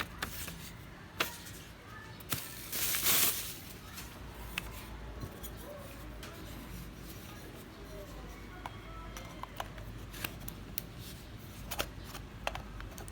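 Scattered sharp clicks, with a short rustling burst about three seconds in.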